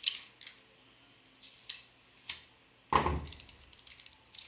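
Hands working on a hovercraft's tarp skirt: a string of short rustles and clicks, with a louder knock and rustle about three seconds in.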